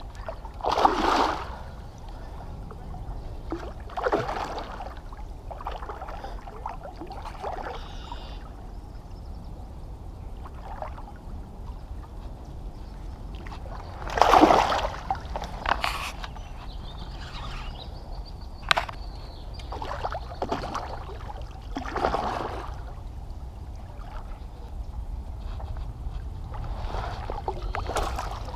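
A hooked fish splashing and thrashing at the surface of shallow, weedy water in a series of sudden splashes, the loudest about halfway through. Near the end comes a burst of splashing as a landing net is scooped through the water and weeds.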